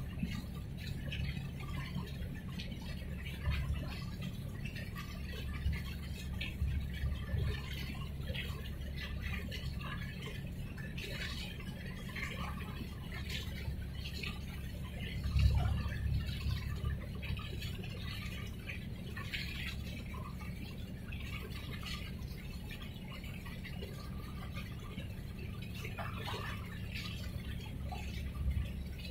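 Small waves lapping and splashing at the water's edge, with scattered little drips and slaps, over a steady low rumble that swells briefly about halfway through.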